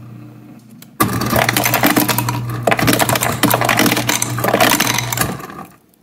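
Samsung RF24R7201SR refrigerator's through-door ice dispenser delivering cubed ice: a low motor hum, then about a second in a loud clatter of ice cubes dropping into a drinking glass over the hum for about four seconds, dying away shortly before the end.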